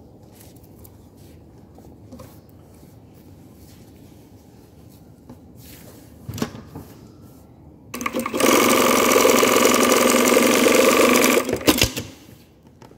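Industrial single-needle lockstitch sewing machine running steadily at speed for about three and a half seconds, starting about eight seconds in and stopping abruptly. Before that come a few faint clicks of the fabric and machine being handled. The machine is sewing with the upper thread tangled at the needle-bar guide screw, the fault that spoils the stitch tension.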